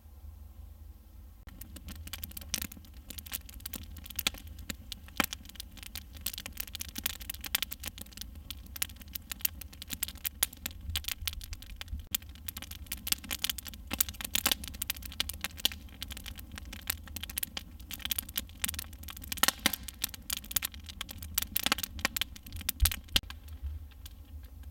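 Wood campfire crackling, with many irregular sharp pops and cracks of varying loudness. It starts about a second and a half in and stops shortly before the end.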